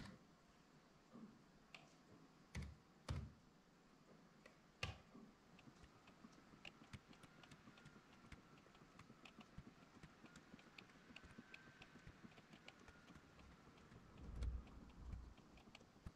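Faint typing and clicking on a laptop keyboard and mouse: a few separate clicks, then a long run of quick light key taps over a faint steady whine. Near the end there are two low thumps.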